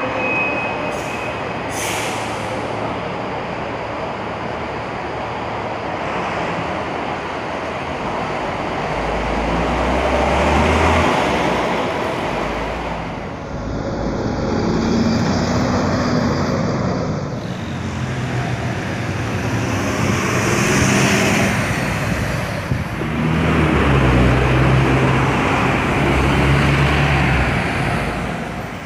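City buses moving close by, their engines running and swelling as they pass, with a short burst of hiss about two seconds in.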